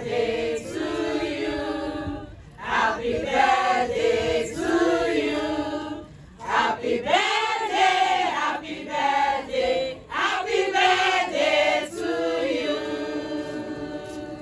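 A group of women singing together as a choir, in sustained phrases with short breaks between them.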